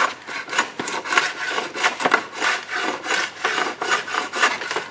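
Hand plane shaving a wooden repair plank in a quick series of short strokes, trimming the plank to fit.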